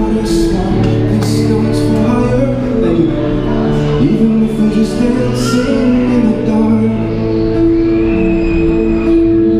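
Live acoustic guitar playing with a man's sung vocal line, amplified through a Roland Cube Street EX street amp, with held low notes under sustained chords.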